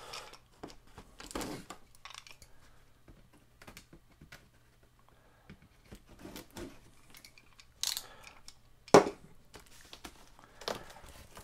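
Utility knife slitting the packing tape on a cardboard box, with scattered scrapes and cardboard rustles; a brief rip about eight seconds in, followed at once by a sharp knock.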